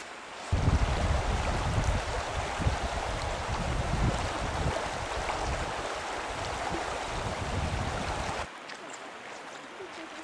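Rushing river water with a low, unsteady rumble beneath it, starting suddenly about half a second in and cutting off suddenly near the end.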